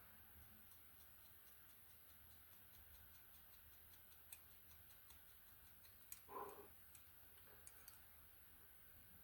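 Near silence, with a faint, even ticking of about three to four ticks a second and one brief soft sound about six seconds in.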